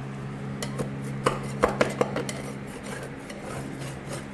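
A paint scraper scraping and knocking against old painted wood, a quick run of sharp clicks and taps about a second in, over a steady low hum.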